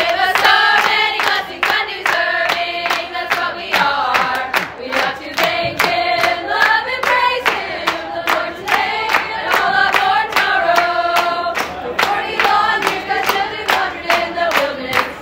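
A group of voices singing together, with hand claps keeping a steady beat of about two to three claps a second.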